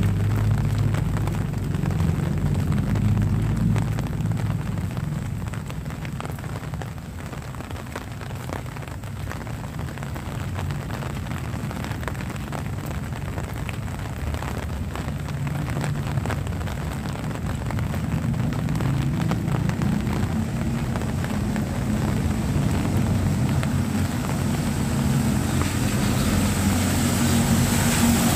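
Low hum of a motor vehicle engine over light rain pattering. The engine sound dips in the middle, then grows steadily louder toward the end as a van approaches on the wet road, with tyre hiss rising in the last seconds.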